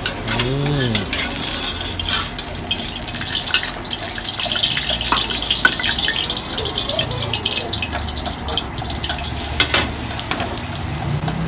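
Cooking oil heating in a wok, with a steady hiss and scattered crackles and spits as the pan gets hot.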